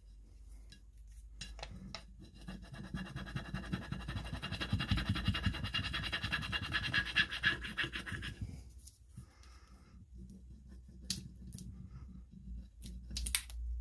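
Rubbing stick scraping back and forth over a rub-on transfer sheet on a glass jar, burnishing the design onto the glass. The scratching builds and stays loud for several seconds, pauses briefly, then goes on more quietly with a couple of light taps near the end.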